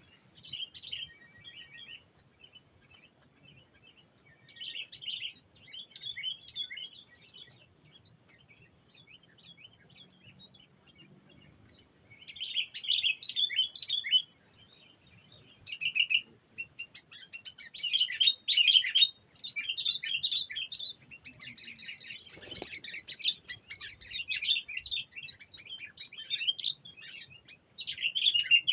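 Sooty-headed bulbuls (kutilang) chirping and chattering in quick bursts, busier and louder in the second half. There is one dull thump about three-quarters of the way through.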